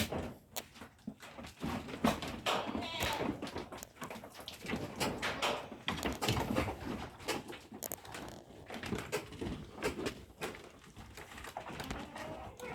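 Irregular knocks, clatter and rustling from goats moving about their pen, with a few bird chirps.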